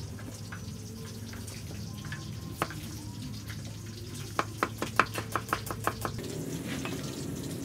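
Meat cleaver chopping shallots on a round wooden chopping board. There is a single knock about two and a half seconds in, then a quick run of about ten chops, roughly five a second, a little past halfway.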